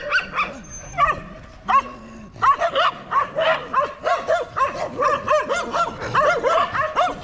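Several dogs barking rapidly and continuously, the barks overlapping, with a short lull about two seconds in.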